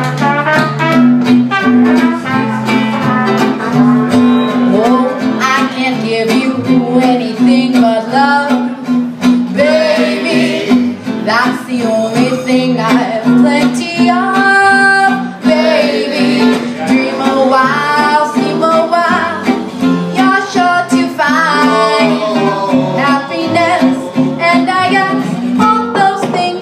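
Small swing jazz combo playing: a woman singing over plucked upright bass and acoustic guitar.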